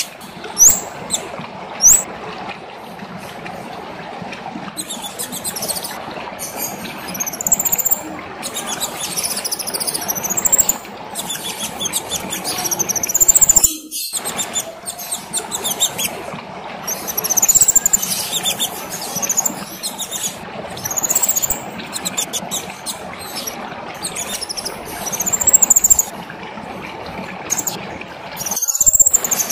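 A kemade songbird singing a prolific, non-stop song of shrill, high-pitched arching notes repeated in quick phrases. The song is laid over a steady background hiss.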